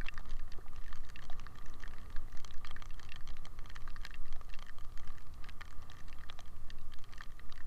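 Irregular light tapping and clicking, many small ticks at uneven intervals over a low steady rumble.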